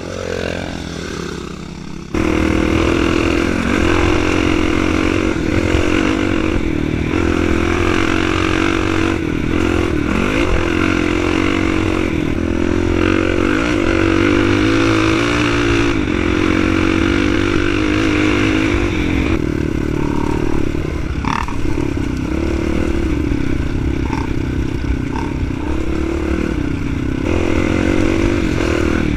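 Dirt bike engine running hard on a dirt trail, its pitch rising and falling with the throttle, with some clatter and scraping from the bike over the rough ground. It grows louder over the first two seconds, then jumps abruptly louder to an engine heard up close from the bike itself.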